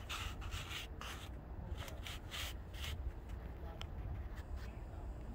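Footsteps crunching on gravel railroad ballast, a few crunches a second, thinning out after about three seconds, over a low steady rumble.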